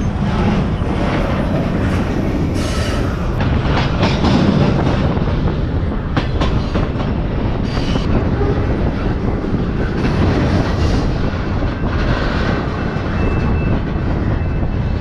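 CN freight train rolling, heard from aboard one of its cars: a steady heavy rumble of wheels on rail, with scattered clanks and knocks.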